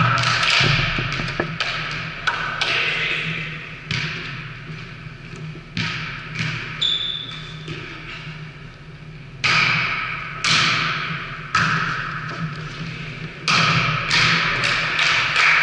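A volleyball being struck by hands and landing on a wooden gym floor: a series of sharp thuds one to two seconds apart, each ringing on in the echo of a large sports hall. A brief high squeak comes about seven seconds in.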